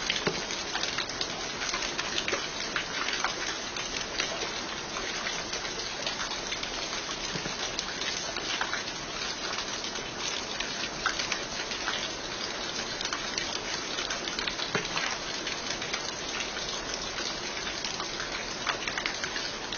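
Steady rain falling, an even hiss dotted with many close individual drop hits.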